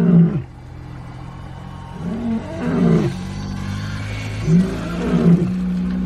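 Male African lion roaring: deep, moaning calls that rise and fall in pitch, coming about every two seconds.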